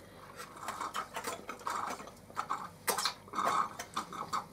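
Two people sucking and slurping the last drops of juice from small plastic drink packs, a series of short noisy slurps with small plastic crackles between them.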